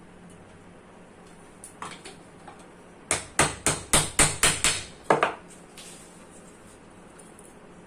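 Hammer tapping on metal: a few faint knocks, then about eight quick sharp strikes over two seconds.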